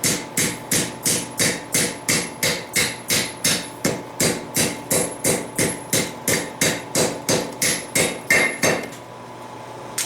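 Steady hand-hammer blows on hot steel over an anvil, about three a second, as a steel ring is forged; the hammering stops about nine seconds in. A faint steady hum runs underneath.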